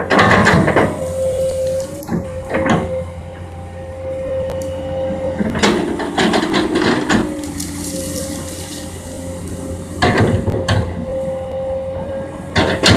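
Komatsu PC200 hydraulic excavator at work: its diesel engine runs with a steady whine, and sharp knocks and scraping crashes of the bucket working the ground come every few seconds.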